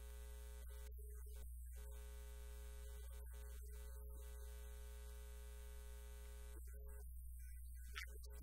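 A low, steady electrical hum with a few higher steady tones above it, holding the same pitch throughout. It sounds like a buzz in the sound feed rather than speech or played music.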